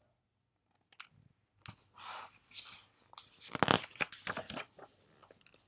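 Pages of a hardcover picture book being turned and handled: a couple of faint ticks, then quiet paper rustling with a louder crinkle of paper a little past the middle.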